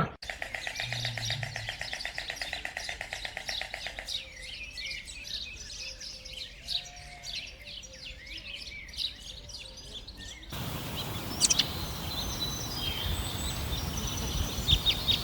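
Small birds chirping, with many short high calls. It opens with a fast pulsing trill. About ten seconds in, the background changes abruptly to a steady hiss, with a few sharp chirps over it.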